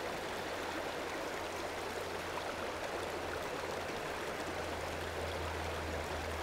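Small, shallow, rocky stream flowing steadily: an even rush of moving water.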